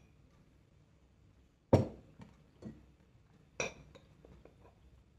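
Tableware clinking and knocking: three sharp clinks about a second apart, the first the loudest, then a few lighter taps, as chopsticks work in a ceramic bowl and a drinking glass is set down on a wooden table.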